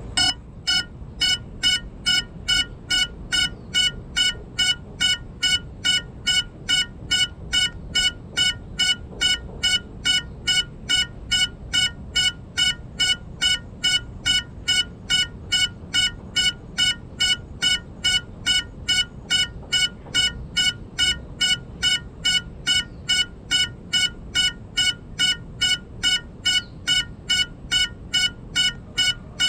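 Crashed FPV drone's lost-model locator beeping: short, high beeps about twice a second, starting suddenly and repeating evenly, sounding so the downed quad can be found.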